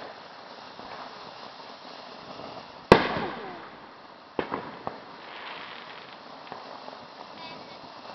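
A firework going off: one loud bang about three seconds in that echoes away over a second or so, followed by two smaller pops about a second and a half later.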